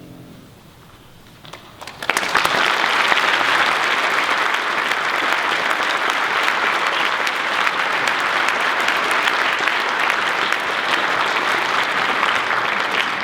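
Concert audience applauding, breaking out about two seconds in as a held choral chord dies away, then clapping steadily and loudly.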